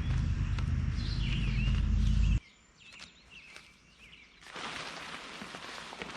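Small birds chirping in short calls. A heavy low rumble, typical of wind buffeting the microphone, covers the first couple of seconds and cuts off suddenly. A steady hiss follows a couple of seconds later.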